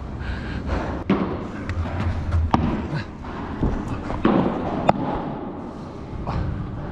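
Padel ball being hit with rackets and bouncing on the court and walls: several sharp knocks spread through a few seconds, in a large hall.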